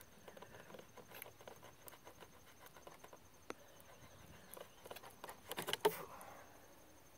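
Carbon Express Piledriver two-blade broadhead being wrenched back and forth out of a wooden pallet: small scattered creaks and clicks, then a quick run of louder clicks about six seconds in as it pulls free.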